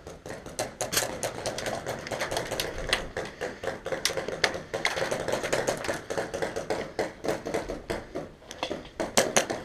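Airsoft fire around wooden barricades: a rapid, irregular run of sharp clicks and snaps, several a second, from BBs being fired and striking the plank walls.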